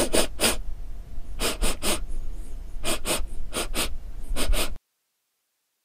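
Cat eating grilled fish close to the microphone: short, noisy mouth-and-nose sounds in groups of two or three, about every second and a half, over a low rumble. The sound cuts off abruptly near the end.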